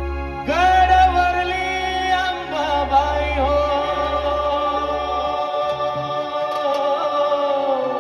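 Music: a singer's long held opening note, entering about half a second in and wavering slowly, over sustained keyboard chords and a low bass drone that drops out about five and a half seconds in.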